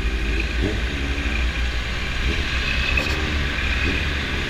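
Honda CB650 inline-four motorcycle engine running at low speed in slow traffic, a steady low rumble mixed with surrounding traffic noise.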